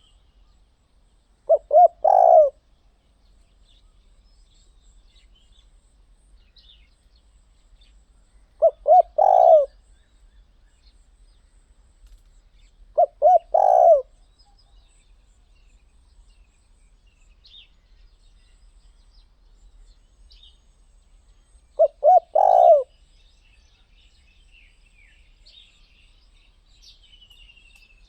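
Spotted dove cooing: four calls several seconds apart, each two short coos followed by a longer rolling coo. Small birds chirp faintly in the background.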